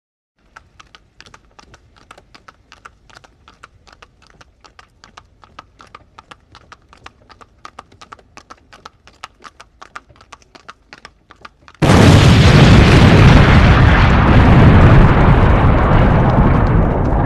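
Horse hooves clip-clopping at a steady trot, about four beats a second and quiet. About twelve seconds in, a sudden, much louder explosion breaks in and keeps rumbling.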